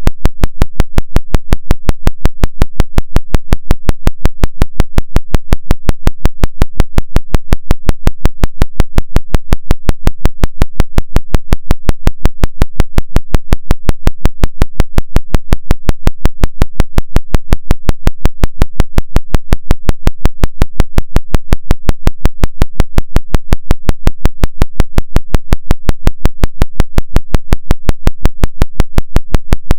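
Isochronic tone for brainwave entrainment: a low hum switched sharply on and off about five and a half times a second, the 5.5 Hz theta-rate pulse.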